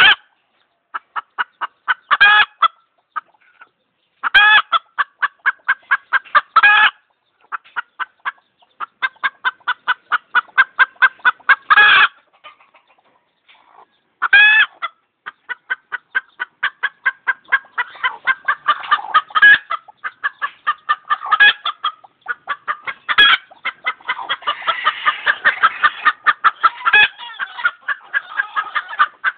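Chicken clucking in quick runs of short clucks, about three to four a second, broken every few seconds by a louder, drawn-out screeching call. The calling grows denser and more continuous near the end.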